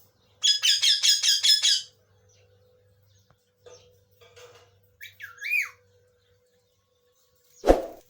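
A pet lovebird giving a quick run of about seven high-pitched calls, then a few faint chirps and one call that rises and falls. Near the end comes a single sharp thud, the loudest sound.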